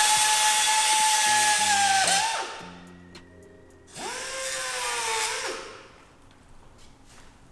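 High-speed power cutting tool whining steadily while cutting carbon fibre, winding down about two seconds in. A second, shorter cut follows from about four seconds.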